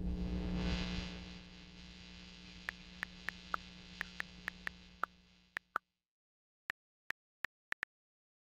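Smartphone on-screen keyboard key clicks, short and sharp, about sixteen of them in an uneven typing rhythm starting a few seconds in. Under the first clicks a low sustained drone swells in the first second and fades away by about six seconds, leaving the last five clicks alone.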